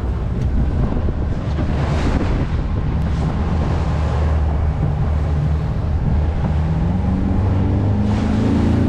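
Fast rescue boat's engine running hard at speed, its pitch climbing near the end as the boat speeds up. Wind buffets the microphone and water rushes past the hull.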